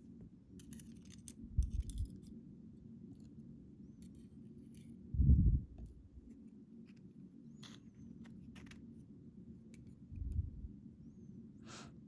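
Small metal lock pin springs being tipped out of the pin chambers, giving scattered light metallic ticks and clicks, with a few dull thumps of handling, the loudest about five seconds in.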